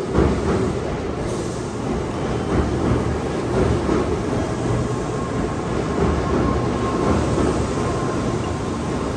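Shinkansen bullet train running, a steady low rumble of wheels and motors.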